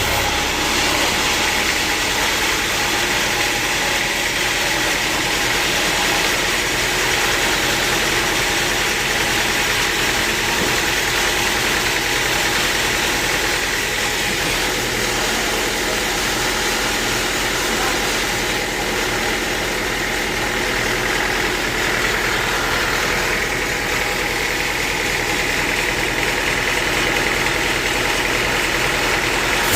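Sawmill machinery running steadily: an even motor hum with a thin high whine held throughout.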